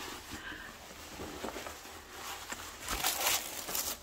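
Soft rustling and brushing of cotton pajama fabric as hands handle and smooth it, with a louder papery rustle of tissue paper near the end.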